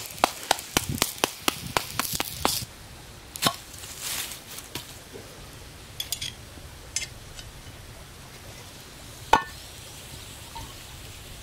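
Wood fire crackling under an iron griddle: a quick run of sharp pops, about three or four a second, for the first two or three seconds, then only a few scattered pops and one sharp crack near the end.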